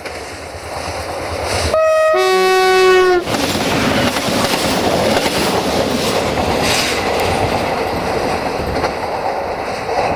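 Duewag BR628 diesel multiple unit sounding its two-tone horn about two seconds in, a short higher note then a longer lower one that cuts off sharply. The train then rolls past close by, with steady wheel and running noise and some rail-joint clatter.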